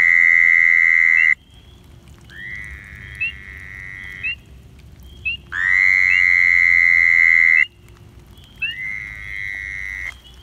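Male Fowler's toads giving their long, nasal buzzing breeding calls, each about two seconds, four in all, louder and fainter calls alternating. These are males calling to draw females to the breeding pool. Faint short rising peeps of other frogs sound between the calls.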